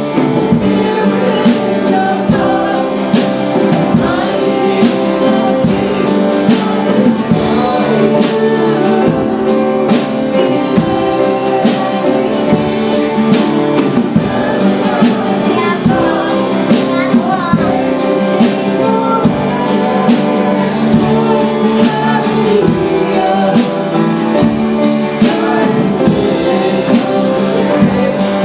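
Live worship band playing a song with singing, drums and guitar, with a steady beat.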